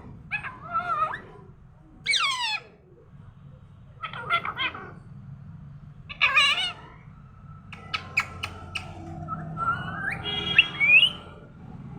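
A pet parrot calling in short bursts every second or two, mixing squawks and whistles. There is a falling whistle about two seconds in, a few sharp clicks around eight seconds, and a rising whistle near the end.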